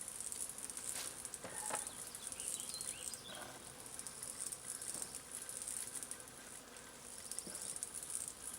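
Steady high-pitched chirring of field insects, pulsing rapidly, with a few faint light knocks.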